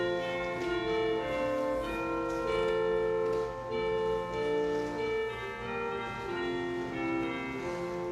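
Instrumental postlude music: a slow melody of held notes over sustained lower tones, the notes changing about once or twice a second.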